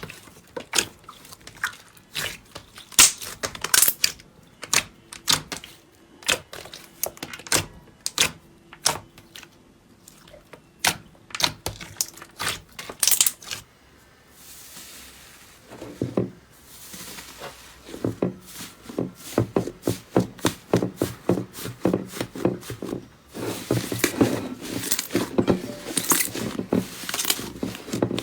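Slime being squeezed and pressed, giving a run of sharp clicks and crackles: spaced out over the first half, a soft rustle about halfway, then denser crackling toward the end.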